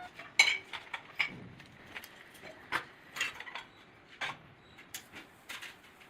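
Metal parts clinking and knocking against each other, handled by hand: a dozen or so irregular sharp clicks, the loudest about half a second in.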